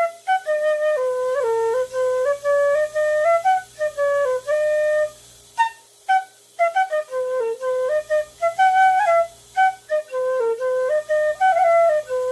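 A new PVC B-flat fife being played for the first time after its finger holes were drilled: a single line of melody, with held notes and quick steps between them, and a short break about halfway through.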